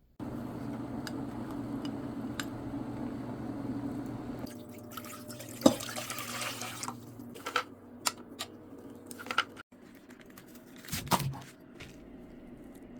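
Water running steadily for about four seconds, then splashing and dripping with a few sharp clicks and knocks.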